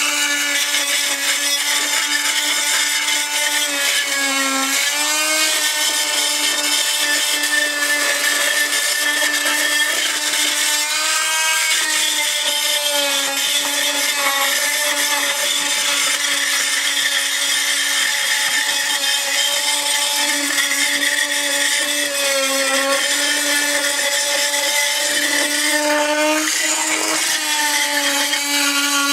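Chicago Electric oscillating multi-tool with a carbide tile blade running steadily as it grinds out grout along the edge of an old floor tile, a high hum over gritty scraping. Its pitch dips for a moment a few times as the blade is pressed harder into the grout.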